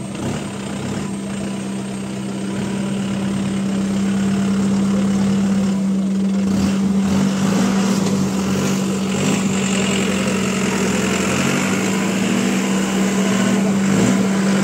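Off-road jeep engine running steadily at a constant speed, with one unchanging pitch. It grows somewhat louder a few seconds in.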